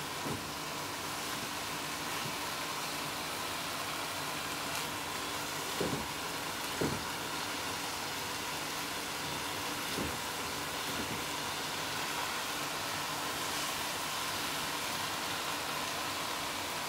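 Thick mashed-vegetable bhaji frying with a steady sizzle in a nonstick karahi as the last of its water cooks off, stirred with a plastic slotted spatula. A few soft knocks of the spatula against the pan, the clearest about six and seven seconds in.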